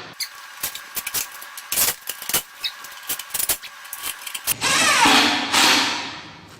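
Scattered light clicks and taps of small hardware being handled, then a power drill runs for about two seconds and winds down near the end.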